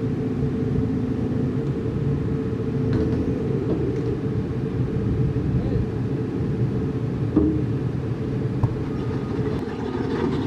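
Heavy diesel equipment running with a steady low rumble, and a couple of short knocks in the second half.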